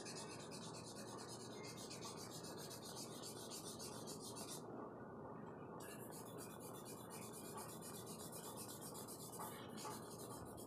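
Vine charcoal stick scratching across drawing paper in quick hatching strokes, faint and steady, with a brief lull near the middle.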